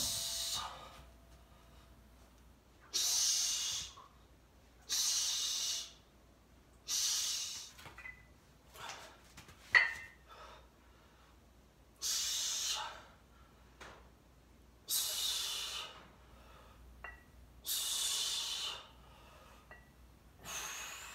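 A man breathing out hard with each rep of a bench press: about eight forceful, hissing exhalations, two to three seconds apart. A single sharp knock comes about ten seconds in.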